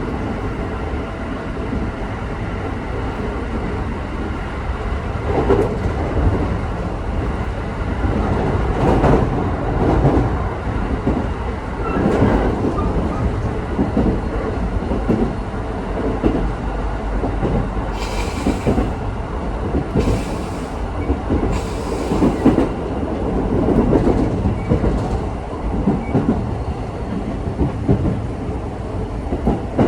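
Local electric train heard from inside the car: steady running rumble with wheels clacking over rail joints, slowing for a station stop. About two-thirds of the way in come three short hisses, each about a second long.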